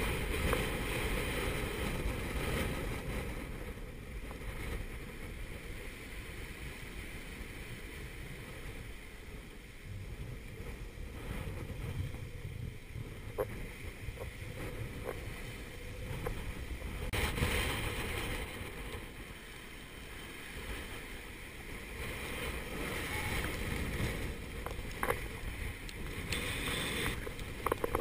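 Force 7 gale wind buffeting the microphone over the rush of breaking seas along a sailboat's hull as it runs downwind. The noise swells in surges as gusts and waves come through, with a few faint knocks.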